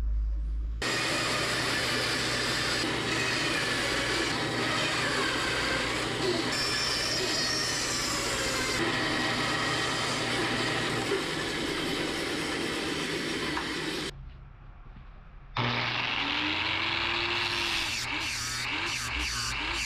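Bandsaw running and cutting small blocks of wood: a steady motor hum under a dense rasping noise, which stops abruptly about fourteen seconds in. A moment later an angle grinder fitted with a sanding disc starts up and runs.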